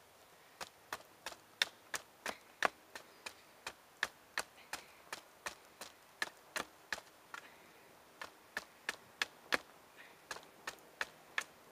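Small hatchet chopping the end of a wooden stick into a point against a block of wood: a steady run of sharp chops, about three a second, with a short break about two thirds of the way in.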